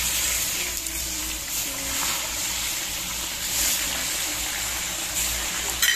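Beef sizzling in hot oil in a kazan: a steady, loud frying hiss that jumps up suddenly right at the start, as more meat goes into the oil, with a few light clicks of spatter.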